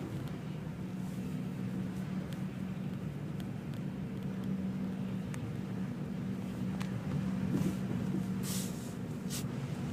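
A vehicle engine running steadily with a low hum, with a few faint clicks and two short hisses near the end.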